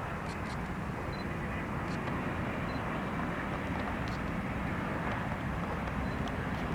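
Boeing 787 Dreamliner's jet engines heard as a steady rushing noise that grows slightly louder.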